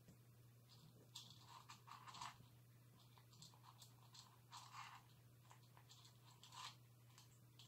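Cat crunching dry kibble, faint, in three bursts of chewing with short pauses between mouthfuls.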